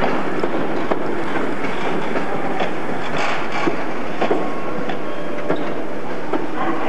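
InterCity passenger train rolling past: a steady rumble of wheels on the rails, with irregular clicks and clacks as the coaches' wheels cross rail joints.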